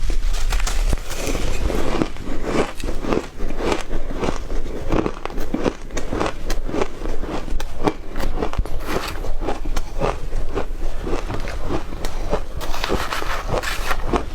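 Close-up crunching of shaved ice being bitten and chewed: a dense, irregular run of crisp crunches, several a second.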